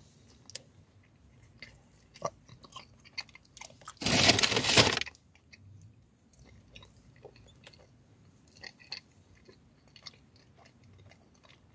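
Close-up chewing of a soft donut, with small scattered mouth clicks. About four seconds in, a loud rush of noise lasts about a second.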